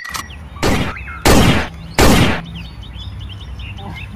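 Three short, loud bursts of noise about two-thirds of a second apart, each dying away quickly, over birds chirping in the background.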